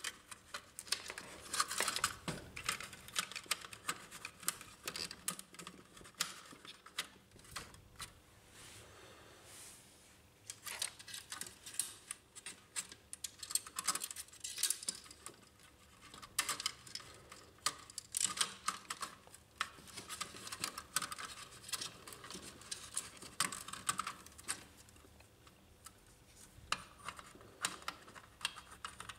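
Irregular small clicks and rustling of a flat ribbon cable, wire connector and plastic printer parts being handled and pushed into place, with a quieter stretch about eight to ten seconds in.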